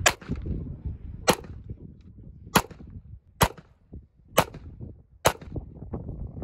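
Six 9mm pistol shots, spaced a little over a second apart at first and then slightly quicker, about one a second.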